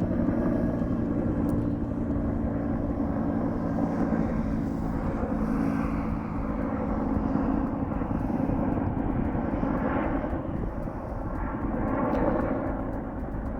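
Helicopter flying overhead: a steady engine and rotor drone with a low hum, swelling slightly around ten and twelve seconds in.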